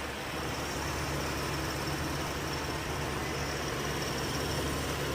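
Car engine idling steadily with the air conditioning running, a low even hum with a faint high whine above it.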